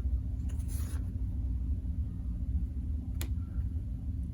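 Trading cards being handled and slid across one another while a pack is gone through: a soft papery swish about a second in and a single light tick a little past three seconds, over a steady low hum.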